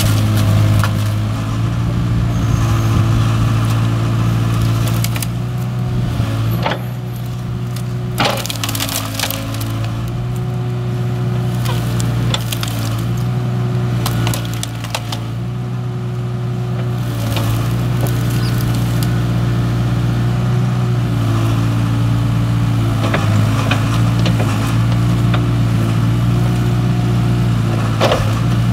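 Kubota mini excavator's diesel engine running steadily, its pitch shifting slightly, as the bucket pushes into a pile of dry brush and branches. Wood cracks and snaps sharply several times, a few in the first third and once near the end.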